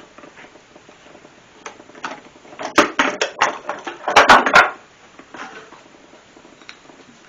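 Clamps being undone and taken off the glued-up furniture: a run of sharp clacks and rattles about a third of the way in, then a louder cluster of metallic clatter a little past halfway.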